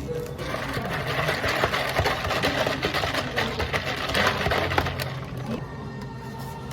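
A small motorised machine at the cafe counter runs with a rapid rattling buzz and a steady low hum for about five seconds, starting about half a second in. It sits over soft background music.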